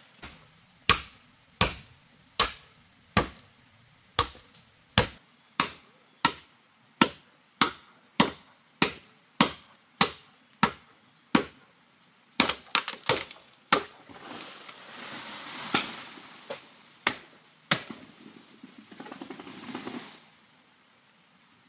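Machete chopping into a bamboo culm: about fifteen sharp strikes, evenly spaced about three-quarters of a second apart, then a few quicker, uneven blows. After that come several seconds of rustling leaves and stems, broken by a few knocks.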